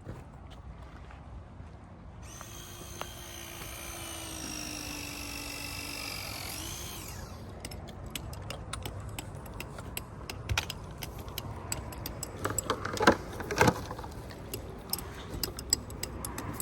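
A hissing whine with a few slowly falling tones lasts about five seconds and then cuts off. After it come many light metallic clicks, taps and rattles of tools and fittings being handled, busiest in a cluster of sharper knocks near the middle of the second half.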